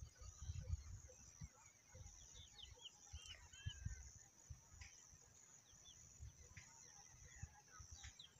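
Faint open-field ambience: scattered small bird chirps and short calls, with a steady faint high hiss and soft irregular low rumbles and thuds.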